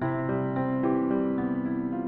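Gentle background music on a keyboard, a melody of held notes changing about every third of a second.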